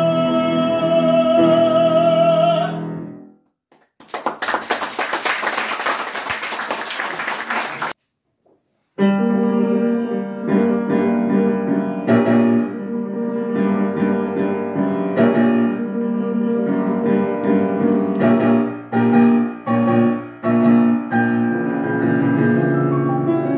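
A male opera singer holds a long final note with vibrato over grand piano, which fades about three seconds in; applause follows for a few seconds. After a short silence, the grand piano starts an operatic introduction, chords with a melody over them.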